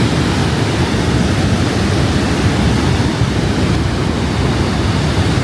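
Niagara Falls: the steady, loud rush of a great mass of falling water, heaviest in the low end and unbroken throughout.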